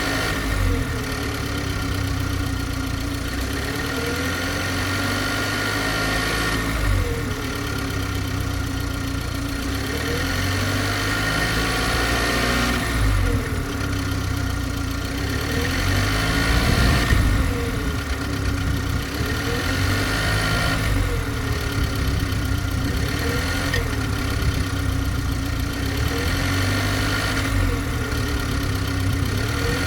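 BMW G20 330i running steadily. Over the engine hum, a whine dips and rises in pitch about every two seconds: the strange noise the owner is recording, its cause unknown.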